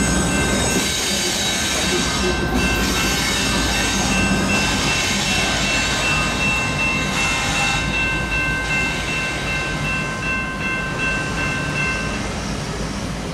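Freight train cars rolling past a railroad grade crossing with a steady rumble that slowly fades, while the crossing's warning bell keeps ringing and stops near the end as the gates go up.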